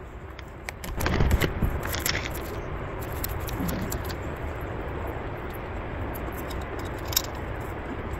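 Camping gear being handled at a tent: rustling and clunks about a second in, then a steady hiss with a few light clicks and a sharp tick near the end.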